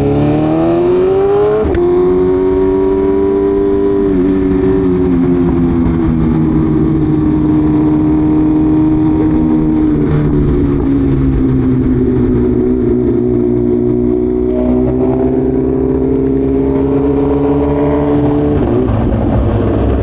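BMW M1000RR's inline-four engine pulling hard at high revs under full throttle, with a clean upshift about two seconds in. The pitch holds high, sags, climbs steadily again and drops near the end, over a low wind rush.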